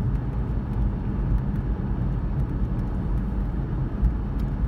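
Steady low rumble of a car driving, heard from inside the cabin: road and engine noise with no clear changes.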